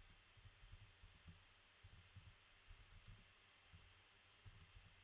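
Faint typing on a computer keyboard: irregular soft key clicks and thumps.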